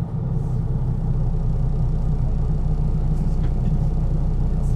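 MAN NG 313 articulated city bus's six-cylinder diesel engine running steadily, a deep drone that grows a little louder in the first second and then holds even.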